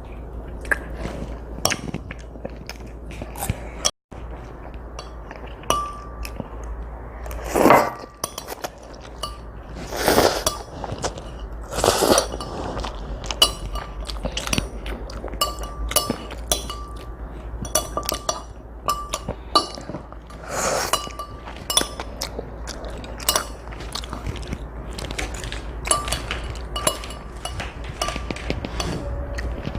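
Eating utensils clicking and clinking against a bowl in many light, irregular strikes as noodles are eaten. A few louder noisy sounds, each about half a second long, come a quarter to two fifths of the way in.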